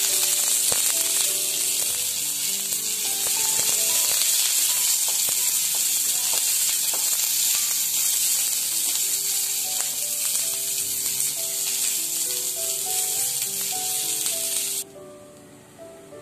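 Sliced onions sizzling in hot oil in a kadhai, stirred with a wooden spatula that taps against the pan now and then. The sizzle cuts off abruptly near the end.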